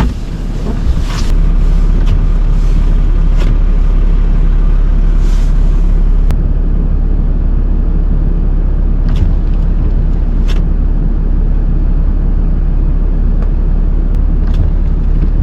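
Tow truck's engine running steadily, a constant low-pitched drone, with a couple of faint clicks about nine and ten seconds in.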